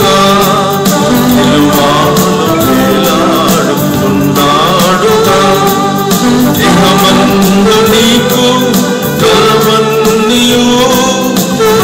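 A man singing a gospel hymn, accompanying himself on an electronic keyboard, with a steady beat under the sustained chords.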